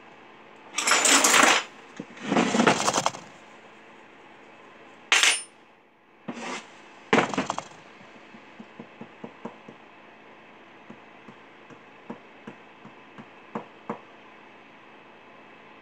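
Metal clattering on a workbench as chainsaw parts and tools are handled: two longer rattles near the start, a few shorter clanks a few seconds later, then a run of small light clicks.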